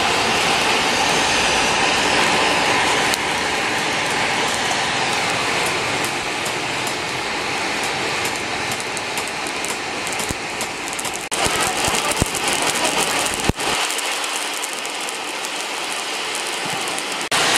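A hair dryer blowing air into a charcoal forge: a steady rushing of blown air through the burning charcoal. In the second half it is joined by sharp crackles and pops as the coals throw sparks.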